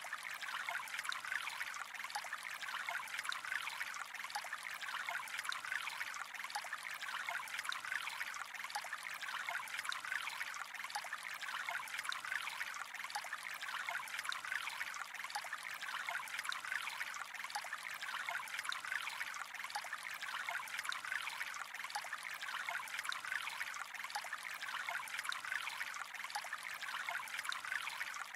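Gently flowing water trickling steadily, with a fine patter of small droplet ticks.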